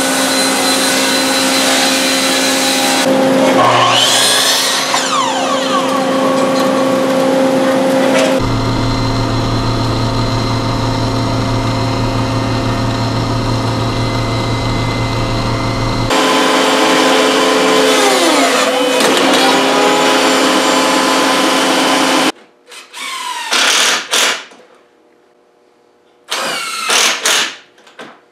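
A sequence of woodworking machines. First a cabinet table saw rips a solid-wood board. Then a spindle shaper with a power feeder runs with a steady low hum. Near the end a cordless drill drives screws into a face frame in short bursts with pauses between them.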